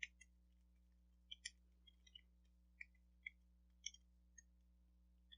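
Faint, irregular small clicks and taps from mortise lock cylinders and their parts being handled, about a dozen spread unevenly.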